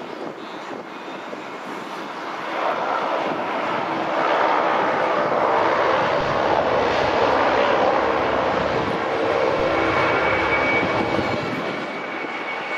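Airbus A330 twin jet engines powering up for takeoff: the jet noise builds about three seconds in and then holds steady and loud as the airliner rolls down the runway. A thin high whine comes in near the end.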